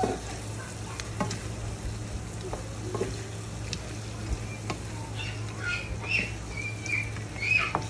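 A spatula stirring prawns in sauce in a frying pan, with scattered light taps and scrapes against the pan over a faint sizzle and a steady low hum. A few short high squeaks come near the end.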